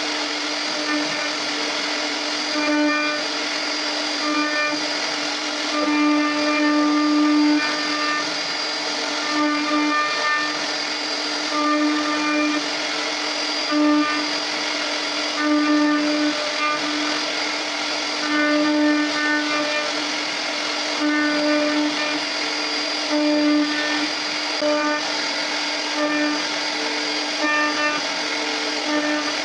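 CNC router spindle running with a steady high whine as its bit cuts a carved design into mahogany, the tone swelling louder in short stretches every second or two as the cut goes on.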